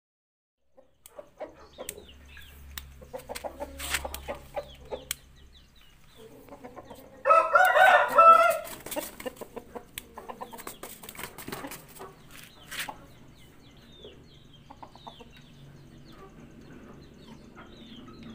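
A rooster clucking softly, with one loud crow of about a second and a half about seven seconds in. Scattered faint clicks and a low hum run underneath.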